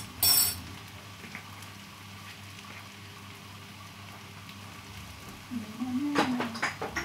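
Food frying faintly in a pan on a gas stove, over a steady low hum. A single sharp metallic clink, the loudest sound, comes about a quarter second in, and a few clicks and a short low pitched sound follow near the end.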